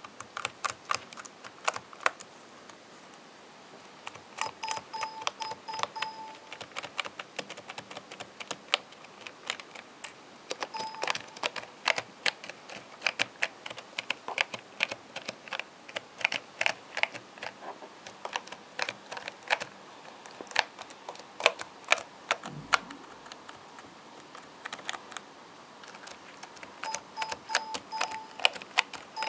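Keys on an MSI CX640 laptop's island-style keyboard being pressed one at a time, a stream of light clicks at an uneven pace. There are a few quicker runs of presses, about five seconds in and again near the end.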